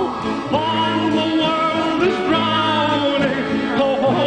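Background music: a melody of sliding, wavering notes over steady bass notes.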